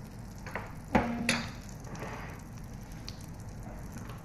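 Butter sizzling and bubbling as it heats in a nonstick frying pan before the fish goes in, with a sharp knock about a second in and a couple of lighter clicks around it.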